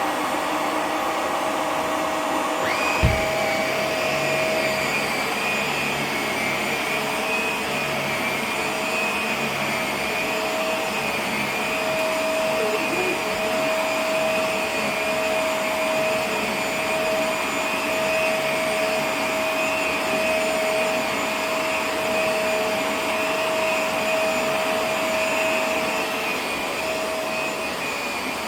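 Vacuum cleaner running steadily with a constant whine. There is one short knock about three seconds in.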